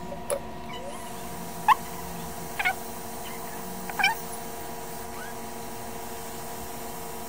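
Hot-air rework station blowing onto a circuit board to desolder a surface-mount diode: a steady hiss that starts about a second in, over a steady hum of several tones. Four short squeaky calls falling in pitch cut through, the loudest about a second and a half in.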